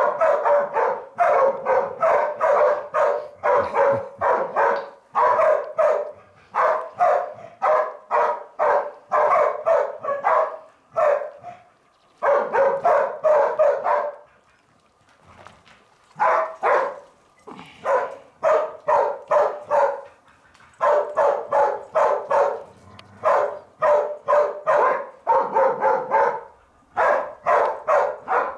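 Hunting dogs barking at a wild boar they have cornered in a cave, holding it at bay. The barks come in long runs of about three a second, broken by a few short pauses.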